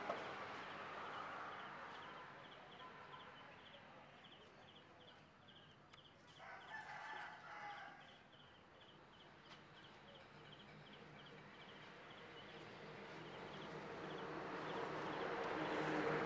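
Faint rural yard ambience: a rooster crows once about six and a half seconds in, over an insect chirping steadily about two or three times a second. A broad rumbling noise swells near the end.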